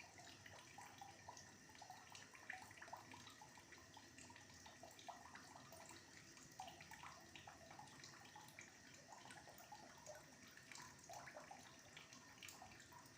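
Faint, irregular bubbling of a pot of bilimbi flower, leaf and fruit decoction simmering over a medium flame.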